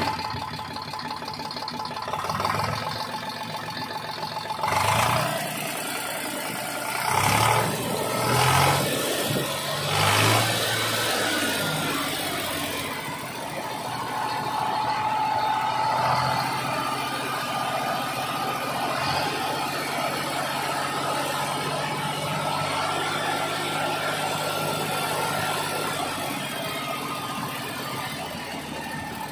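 Diesel tractor engine running, revved in four short blips in the first ten seconds or so, then running steadily.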